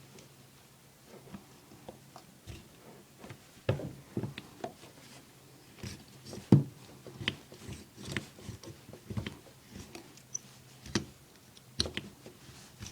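Irregular clicks and knocks of a small hand tool being poked and scraped inside a pipe to clear calcium buildup. The loudest knock comes about six and a half seconds in, over a faint steady hum.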